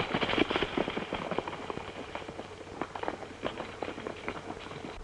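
Horses' hooves clattering at a run, many quick irregular hoofbeats that get fainter as the riders move off.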